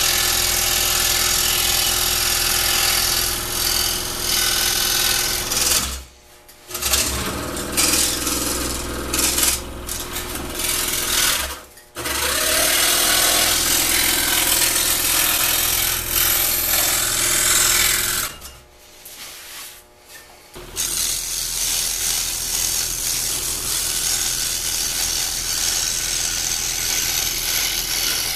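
Scroll saw running and cutting a wooden fretwork panel: a steady, buzzing chatter from the reciprocating blade and motor. The sound drops out briefly twice, then for about two seconds two-thirds of the way through, before the sawing resumes.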